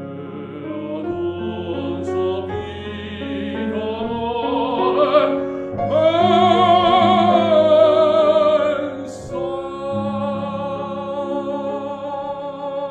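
Baritone singing an Italian art song with piano accompaniment. The voice climbs to a long held note with vibrato about six seconds in, the loudest part, which eases off near nine seconds.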